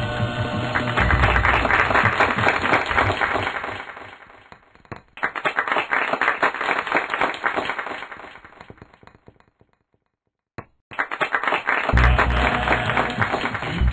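Several copies of the same cartoon soundtrack playing at once and out of step: music mixed with clapping. It comes in swells that fade away, drops to a brief silence about ten seconds in, then returns loud.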